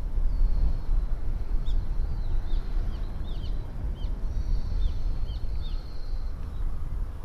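Wind buffeting the microphone, with birds chirping all through: short high chirps, several at a time, and a thin held whistle a little past halfway.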